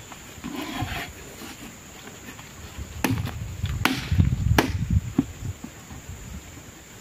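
Rubber boots being handled and pulled on: low thuds and rubbing, with several sharp knocks between about three and five seconds in.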